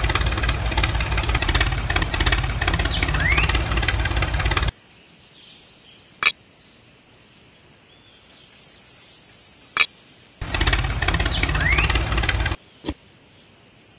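Engine sound effect for the miniature tractor, running loudly and cutting off abruptly about five seconds in. After a quiet stretch broken by two sharp clicks, it comes back for about two seconds, stops abruptly again, and another click follows.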